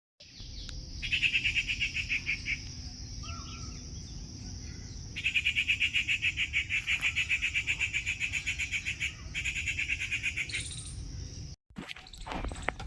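Jungle morning ambience: a steady high-pitched drone under three bouts of a fast, rapidly pulsing trill, the longest lasting about four seconds. It cuts off abruptly just before the end, and a different, busier sound begins.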